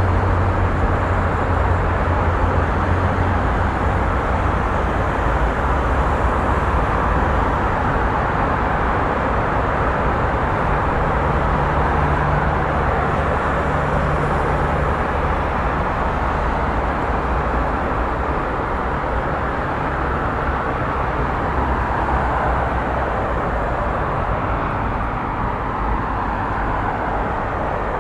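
Steady, continuous rumble of motor vehicle noise with a low hum, no sirens or horns.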